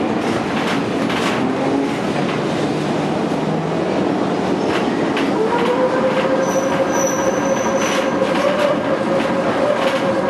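Vintage electric tram heard from inside, running along street track with a steady rumble and clatter of wheels on the rails. About halfway through a motor whine rises in pitch and then holds steady, and a brief thin high squeal sounds near the middle.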